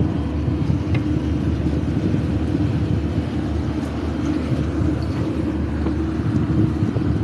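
Tugboat's diesel engines running steadily while towing, a continuous low rumble mixed with wind and churning wake water.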